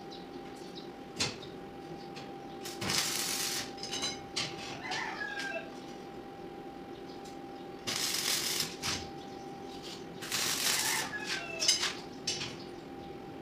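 Stick (arc) welder tack-welding steel grill bars: about four short crackling bursts of roughly a second each, over a faint steady hum.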